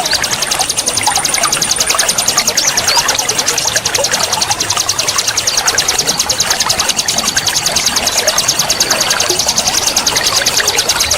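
Birdsong over the steady rush of a waterfall: a fast, evenly repeated high-pitched trill of rapid 'nembak' notes, with scattered shorter chirps.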